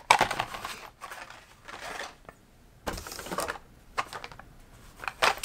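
Cardboard-backed Hot Wheels blister cards being handled and shuffled, sliding against each other and the cardboard case: a few short bouts of papery rustling and scraping.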